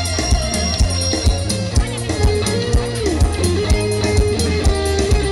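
Amplified live Isan band music through the stage PA: a plucked electric guitar lead with sliding notes over a drum kit's steady beat.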